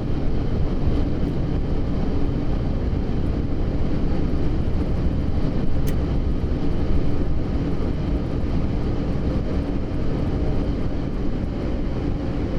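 Boeing 747-8F's four GEnx-2B engines in reverse thrust during the landing rollout, heard from the flight deck as a loud, steady rumble.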